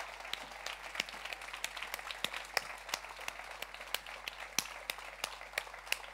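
Small audience applauding. Separate claps stand out, several a second.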